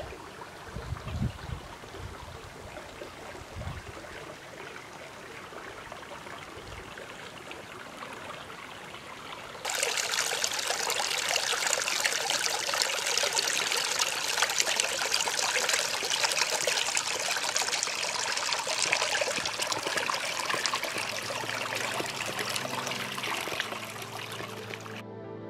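Shallow creek trickling and splashing over stones, starting suddenly about ten seconds in. Before it, faint wind on the microphone; soft music fades in near the end.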